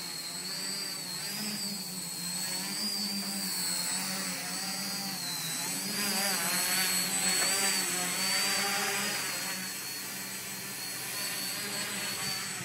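The electric motors and propellers of a homemade tricopter running in flight: a steady high whine over a lower hum, wavering in pitch as the throttle is constantly corrected, a little louder for a few seconds in the middle as it passes close.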